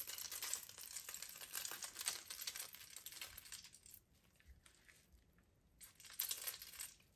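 Piping bag crinkling and rustling as it is squeezed to pipe coconut filling, faintly: a run of crinkling over the first four seconds, then another short burst about six seconds in.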